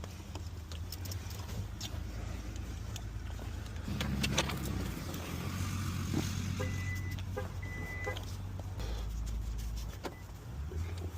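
Car running, a steady low rumble of engine and road noise heard from inside, with scattered clicks and two short high electronic beeps about two-thirds of the way through.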